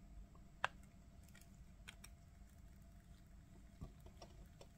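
Near silence with a few faint, sharp clicks and crackles, one louder about half a second in, as rosin-core solder melts under a soldering iron tip onto a copper-clad board.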